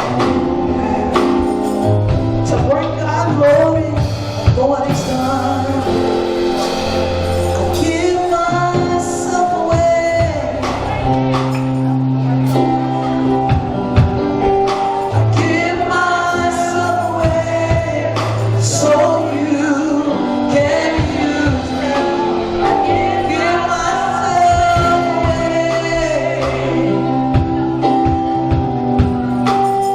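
Live gospel praise and worship music: singers and a choir with a band, bass and drums keeping a steady beat.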